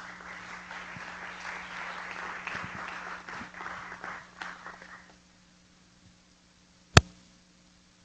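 Audience applauding for about five seconds, then dying away. About two seconds later comes one sharp knock, louder than the applause.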